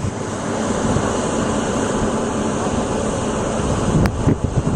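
Steady rushing wind noise on a handheld camera's microphone, with a sharp click about four seconds in.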